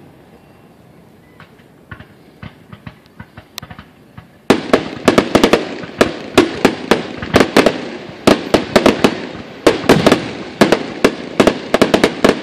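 Aerial fireworks going off: a few faint scattered pops for the first few seconds, then, about four and a half seconds in, a sudden rapid barrage of loud sharp bangs, several a second.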